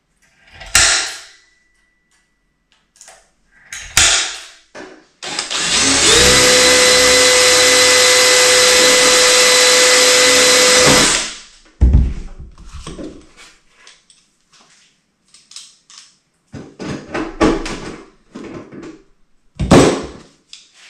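A spring-loaded centre punch snaps twice in the first few seconds. Then a DeWalt cordless drill runs steadily for about five seconds, drilling rivet holes through a rudder hinge, followed by a string of short clicks and knocks as clecos are pushed into the holes.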